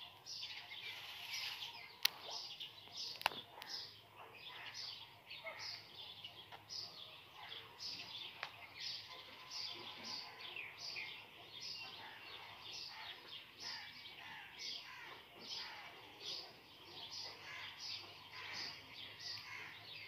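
Small birds chirping all through, a dense chorus of short, high chirps several a second. Two sharp clicks stand out about two and three seconds in.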